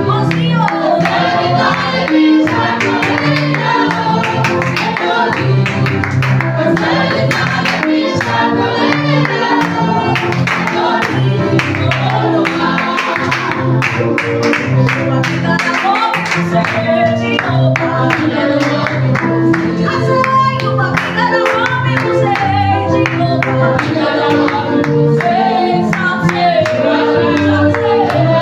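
Gospel praise-and-worship music: a worship team singing with a band, with a steady beat and a moving bass line.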